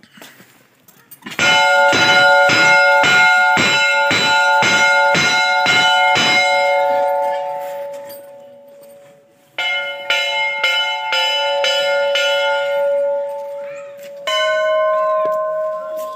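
Hanging brass temple bells rung by hand, one after another. The first bell is struck rapidly about a dozen times, two or three strokes a second, and its ringing dies away; then a second bell of a different pitch rings a few times, and a third, different bell starts near the end.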